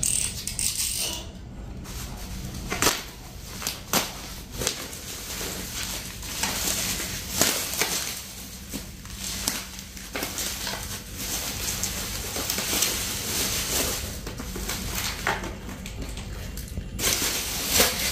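Bubble wrap being unwrapped and pulled off a new laptop cooling pad: irregular crinkling and crackling of plastic with sharp clicks scattered through, and a louder crackle near the end.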